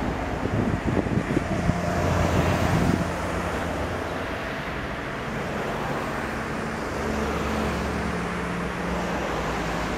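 Wind buffeting the microphone, loudest in the first three seconds, over a steady low rumble of distant engines.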